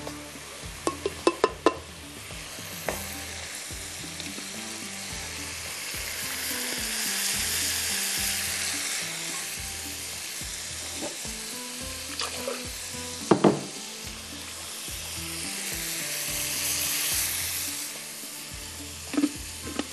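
Chicken curry masala sizzling as it fries in the pan, with a spoon stirring it and clinking against the pan. A quick run of clinks comes about a second in and one loud knock about two-thirds through. The sizzle swells twice.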